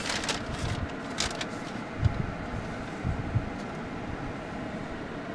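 Steady noise inside a vehicle's cabin with the engine idling, broken by a few brief rustles near the start and soft low thumps about two and three seconds in.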